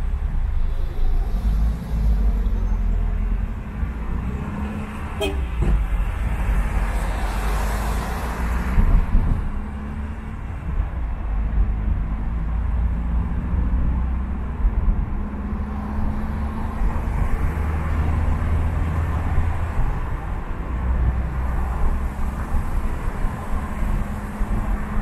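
Wet-road traffic heard from a moving vehicle: a steady low rumble with tyre hiss on the wet road, and a brighter hiss that swells and fades about eight seconds in, as of a vehicle passing through the wet. One sharp click about five seconds in.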